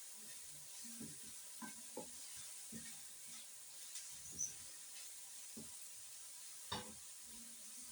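Food sizzling in a frying pan with a steady high hiss, and a few light knocks of a utensil as it is stirred, the clearest about four and a half seconds in and near seven seconds.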